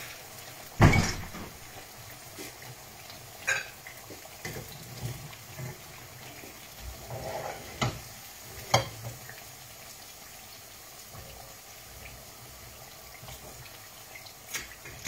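Akara bean fritters frying in hot oil in a metal pan: a steady sizzle, broken by several sharp clinks and knocks of utensils on the pan, the loudest about a second in.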